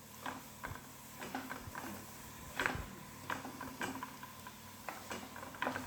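Irregular light clicks and taps, with one louder knock a little over halfway through.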